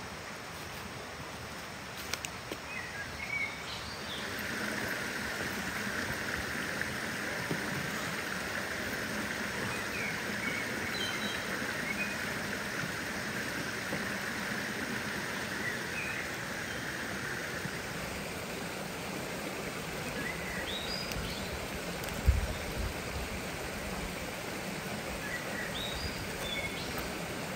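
A stream running steadily, with a few short bird chirps. There is a single low thump about three-quarters of the way through.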